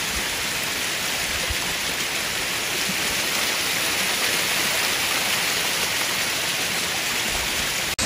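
A waterfall rushing: a steady, even hiss of falling water.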